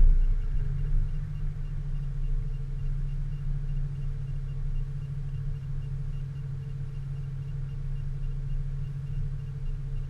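Vehicle engine running steadily, a low even hum with a faint regular ticking above it.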